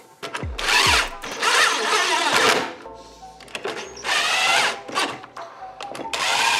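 Cordless drill running the cover bolts of a snowmobile primary clutch in several short bursts, drawing the spring-loaded cover down without a clutch compressor.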